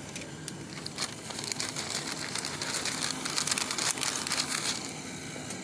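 Paper crinkling and rustling with light clicks as a paper cup is handled and set on a coffee machine's drip-tray grille. Near the end the self-serve coffee machine starts up with a steady hum.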